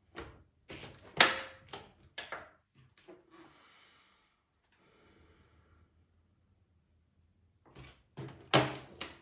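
Countertop vacuum sealer at the end of a sealing cycle: plastic clicks and knocks as the lid is pressed down, the loudest about a second in, then a faint soft hiss, and a further run of clicks near the end as the lid is unlatched and opened on the freshly sealed bag.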